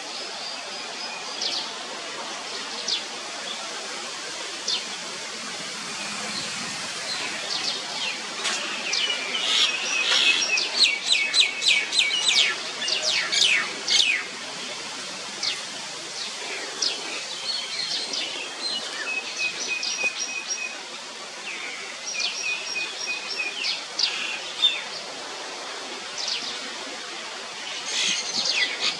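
Small birds chirping and twittering over a steady background hiss. The chirps come in quick runs, busiest around the middle and again near the end, with short trilled phrases in between.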